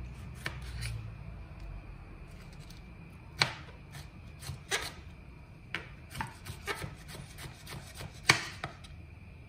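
Kitchen knife slicing tomatoes on a wooden cutting board: irregular knocks of the blade meeting the board, about a dozen, the loudest about three and eight seconds in.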